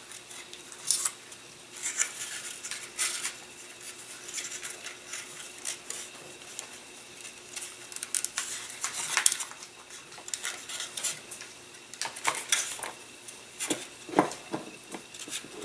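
Thin wooden kit parts being handled and slid into place by hand: irregular light clicks, taps and scrapes of wood on wood.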